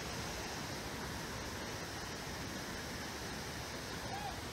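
Whitewater rapids and a waterfall rushing steadily, an even noise with no breaks.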